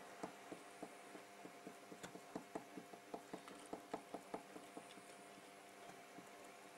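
Faint, irregular light ticks of a cotton swab dabbing conformal coating onto a circuit board, over a faint steady hum; the ticks die away near the end.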